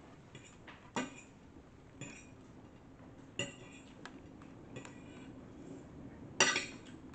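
A metal fork clinking and scraping against a plate while twirling noodles: several separate short clinks, the loudest and longest about six seconds in.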